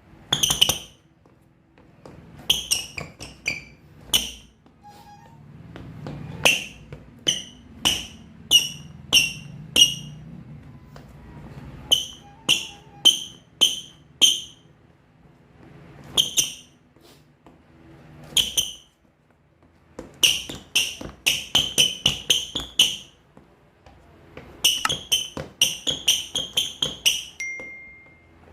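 Xtep JLIN TeamV2 basketball shoes squeaking sharply on a court floor as their outsoles grip: loud, high squeaks, some single and some in quick runs of several a second. The squeaking comes from the very sticky grip of the soles.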